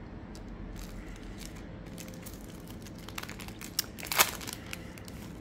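Trading-card pack wrapper crinkling and crackling as it is handled and torn open by hand, in scattered small crackles with a louder burst about four seconds in.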